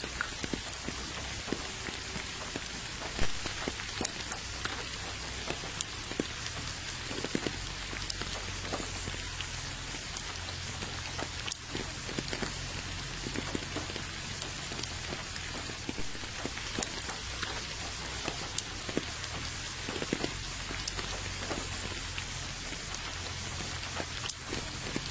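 Steady rain falling into puddles on wet ground: an even hiss scattered with many separate drop ticks. A couple of louder drops stand out, about three seconds in and again near the middle.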